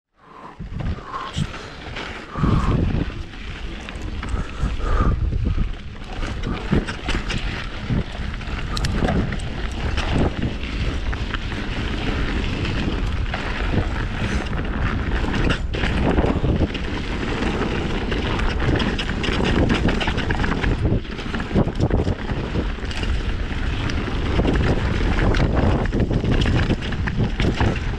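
Mountain bike riding fast down a rocky, rooty dirt trail: wind buffets the microphone in a steady low rumble, with constant rattling and clacking from the bike as it runs over rocks and roots.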